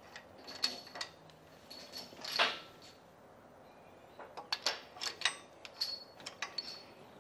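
Small metallic clicks and clinks of steel bolts being handled and threaded by hand into the main bearing caps of a Nissan TD42 diesel engine block. One louder, longer clink comes about two and a half seconds in, and a quick run of clicks follows in the second half.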